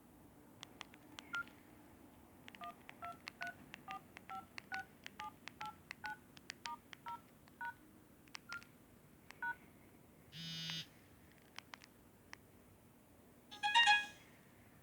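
Samsung GT-E1200i keypad tones: a run of short two-tone dialing beeps, about three a second, with light key clicks among them. A short buzzy tone comes about ten seconds in, and a louder brief cluster of beeps near the end.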